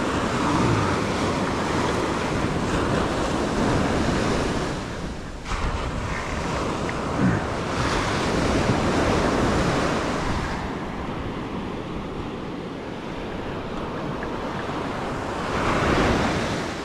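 Ocean surf washing onto the beach, its noise swelling and easing as waves come in, with wind rushing over the microphone.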